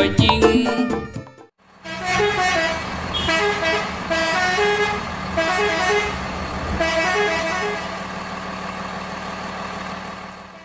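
A brief stretch of upbeat music ends about a second in. Then a multi-tone musical air horn (a 'telolet' horn) on a decorated Indonesian truck plays a short tune over and over above a steady low hum, fading near the end.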